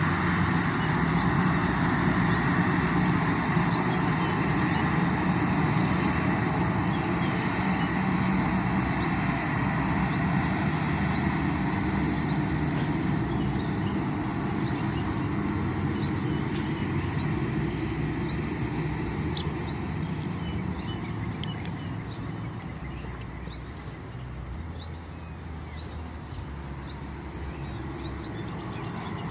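Airbus A320 jet engines rumbling and slowly fading as the aircraft moves away. Over it a bird repeats a short rising chirp again and again.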